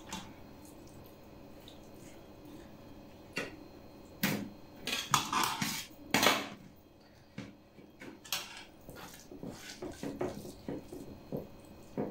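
Metal spoons clinking and scraping against a metal pot and metal trays as filling is scooped out for cabbage rolls, a scatter of short clicks with the loudest scrapes in the middle and lighter clinks near the end.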